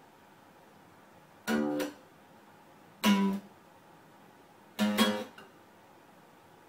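Electronic musical toy mouse playing three short snippets of strummed guitar, set off each time a cat paws it.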